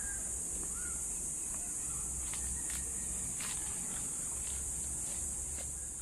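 Outdoor rural ambience: a steady high-pitched drone, like insects, with a low rumble underneath, a few faint bird chirps and several light clicks.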